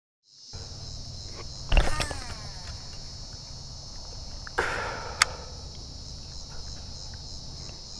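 Steady high-pitched chorus of insects, with a low steady rumble underneath. A loud knock about two seconds in, another midway through and a sharp click just after it come from the fishing rod and reel being handled.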